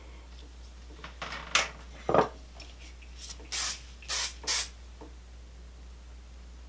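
Aerosol hairspray can sprayed onto hair in about four short hissing bursts, a little past halfway, after a couple of brief knocks from handling.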